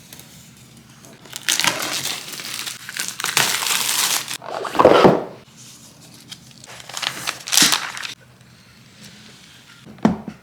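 Packaging being handled: rustling and crinkling in several bursts, with a louder short sound about five seconds in and a sharp click near the end.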